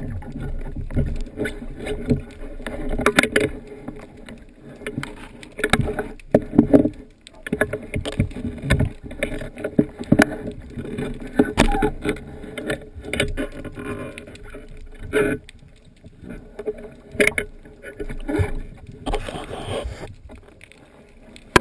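Water sloshing and splashing with many irregular knocks and bumps.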